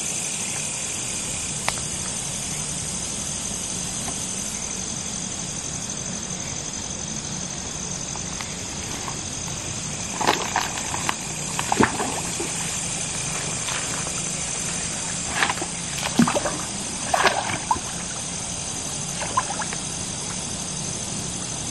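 Cast net being hauled in from a river, with water sloshing and dripping and a scatter of short splashes from about ten seconds in, over a steady chorus of night insects.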